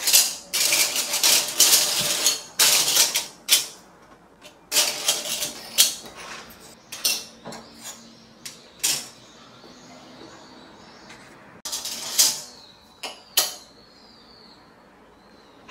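Thin dyed capiz-shell discs clinking and clattering against each other and the wooden tabletop as they are handled and spread out. A dense rattle runs for the first six seconds or so, then comes a string of single clicks as discs are set down one at a time.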